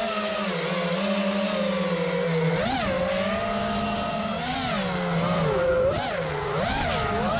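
FPV freestyle quadcopter's four brushless motors (Brotherhobby R6 2306) whining under spinning props, the pitch held fairly steady at first, then swooping sharply up and back down several times as the throttle is punched and eased off.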